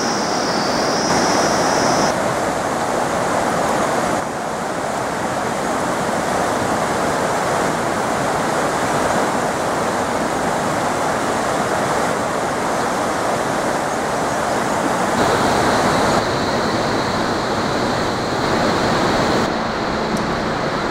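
River water rushing over a rocky bed, a steady loud wash of water noise.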